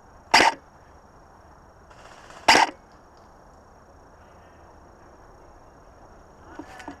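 Two sharp shots from an airsoft rifle, about two seconds apart, followed near the end by a fainter double clatter.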